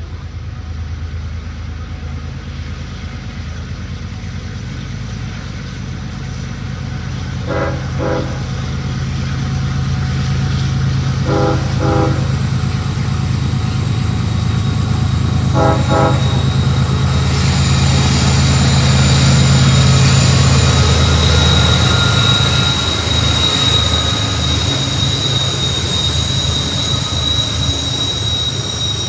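GE diesel-electric locomotives, a BNSF ES44AC leading a Canadian Pacific AC4400CWM on a stack train, running as they approach and growing steadily louder, with three brief double horn toots about four seconds apart. From about two-thirds of the way in, as the locomotives pass close, a high steady wheel squeal rises over the engine sound.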